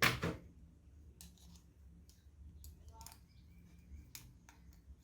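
Hand handling of small hard objects: a sharp click at the start, then scattered light clicks and taps, with a short quick rattle of clicks about three seconds in.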